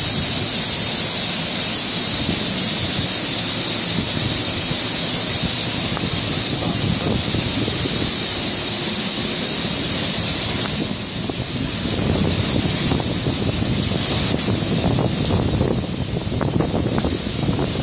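High-pressure water jets of a touchless car-wash gantry spraying a car, a steady high hiss that turns a little more uneven after about eleven seconds.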